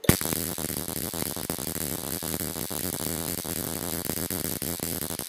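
Ruhmkorff induction coil sparking across a short gap between two brass balls: a harsh, steady buzzing crackle that starts abruptly as the coil is switched on.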